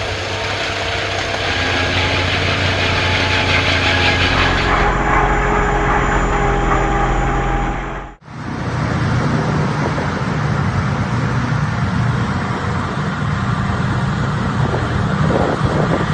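Engines of heavy snow-clearing machinery running steadily. About eight seconds in, the sound cuts abruptly to a different machine with a deeper, rougher engine.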